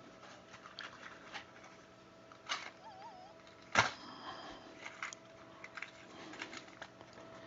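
Loose crimp-on wire connectors (ring terminals and the like) clicking against each other as they are picked through by hand. The clicks are scattered and faint, and the two sharpest come about two and a half and four seconds in.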